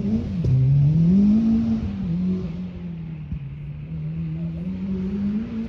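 Toyota Celica GT-Four rally car's turbocharged four-cylinder engine under hard driving, its pitch dropping and climbing through gear changes and throttle lifts, loudest in the first two seconds. A sharp pop about half a second in and another about three seconds in.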